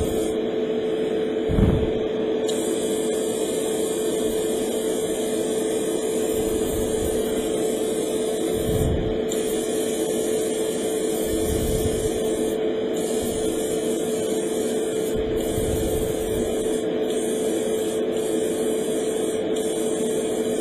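Airbrush spraying primer: a steady hiss of air that breaks off briefly several times, over a constant motor hum. The airbrush is not spraying properly, which the owner puts down to it needing a thorough clean.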